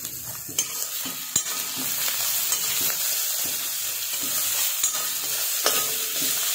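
Chopped onion, ginger-garlic paste and coriander leaves sizzling steadily in hot oil in a steel kadhai while a perforated steel skimmer stirs and scrapes them around the pan, with a few sharp clinks of metal on metal.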